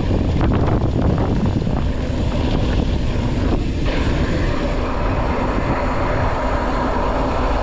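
Wind rushing over the microphone of a mountain bike's action camera during a fast descent, with a few rattles and knocks from the bike on rough ground in the first couple of seconds.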